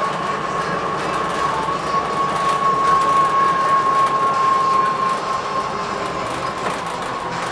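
Blue Bird TX4 CNG bus under way, heard from inside: its Cummins Westport ISL-G natural-gas engine and driveline run with a steady high whine over road noise. The whine is strongest in the middle and fades after about five seconds.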